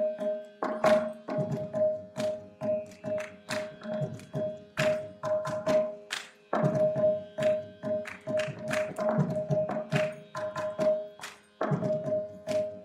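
Background music: a fast pattern of hand-drum strokes over a steady droning note, with two brief breaks in the drumming.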